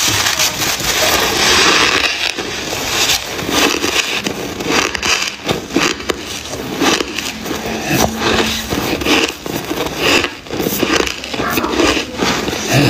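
Freezer frost crunching loudly as it is bitten and chewed, with dense crackling and many short sharp crunches, and a metal spoon scraping through the frost in the bowl.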